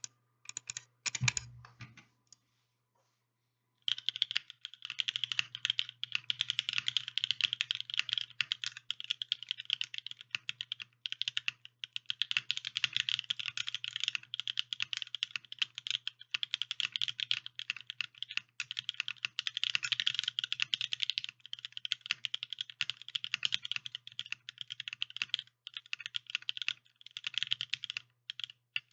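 Typing on a Think6.5 custom mechanical keyboard with lubed Alpaca linear switches, an FR4 plate and GMK Botanicals keycaps. A few separate keystrokes come first, then steady fast typing starts about four seconds in and keeps going.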